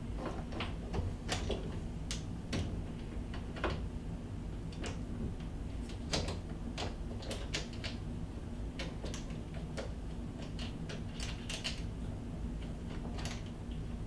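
Irregular small clicks and taps of an interior door knob set being handled, the knobs and mounting screws knocking lightly as the screws are started by hand.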